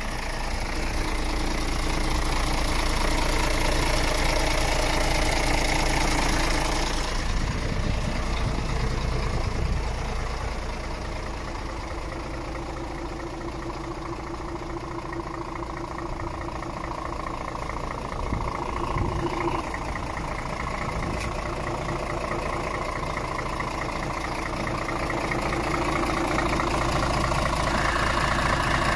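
Scania R410 truck's 13-litre six-cylinder diesel idling steadily. It is louder at the start and again near the end, when it is heard close up in the open engine bay.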